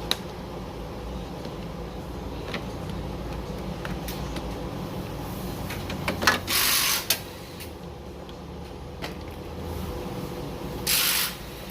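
Hands working on a car door's window regulator: a few light clicks and two short scraping, rustling bursts, one near the middle and one near the end, over a steady background hum.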